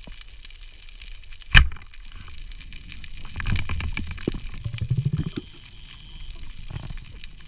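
A band-powered speargun firing underwater: one sharp, loud crack about a second and a half in. A few seconds of rough, fast rattling and rumbling follow as the shaft and line work in the rocky hole and silt is stirred up.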